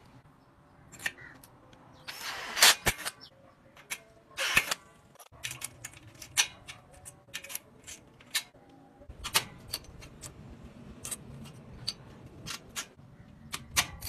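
Metal hardware and hand tools being worked on a steel door frame: a string of sharp metallic clicks and clacks, with short scraping rasps about two seconds and four and a half seconds in.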